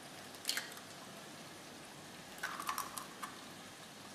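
Eggs being cracked into a glass bowl: a faint tap about half a second in, then a quick run of small cracks and clicks of eggshell past the middle.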